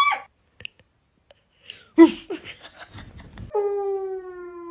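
About two seconds in, a sudden loud sound, followed by a second or so of rapid crackling ticks. Then, from about three and a half seconds in, a dog howls: one long, steady howl that slowly falls in pitch.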